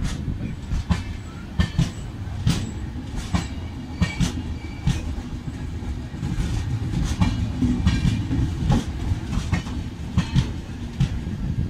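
Passenger train of LHB coaches rolling past close by: a steady low rumble of the running gear with repeated sharp clacks of wheels over rail joints.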